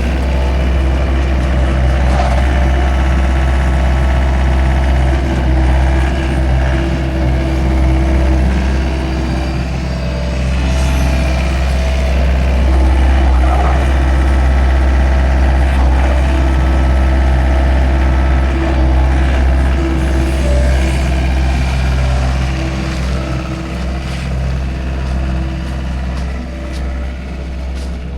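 Engine of heavy farm machinery running steadily, a constant deep hum.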